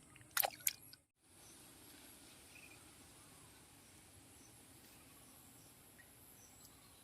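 Faint steady high chirring of insects such as crickets, with two sharp clicks about half a second in, followed by a brief dropout to silence.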